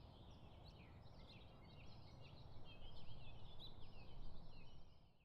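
A chorus of many birds calling at once, short chirps and whistles overlapping, louder around the middle and fading out near the end, over a faint low rumble.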